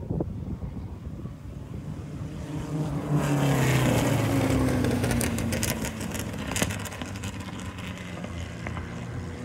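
Formula 1800 open-wheel race cars passing at speed. The engine note swells about three seconds in, is loudest for a couple of seconds while its pitch slides down, then eases off as the cars go by.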